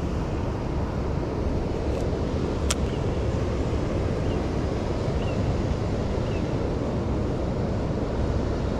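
Steady rushing of river water flowing below a dam, an even noise with no change in level, with one sharp click about two and a half seconds in.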